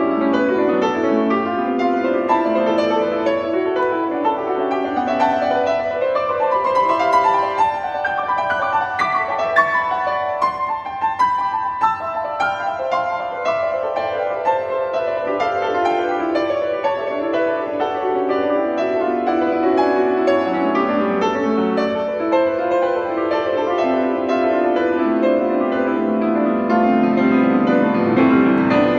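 Bösendorfer grand piano played solo: a continuous stream of quick notes, moving higher around the middle and settling back into the lower register toward the end.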